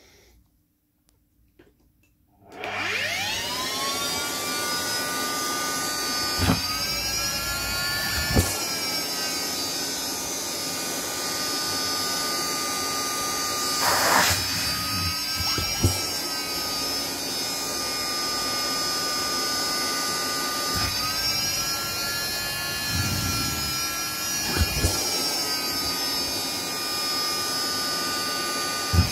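Vacuum cleaner switched on about two and a half seconds in, its motor spinning up with a rising whine and then running steadily. The hose nozzle sucks in cloth, the whine shifting in pitch a few times, with a few short knocks and a brief rush of air about halfway through.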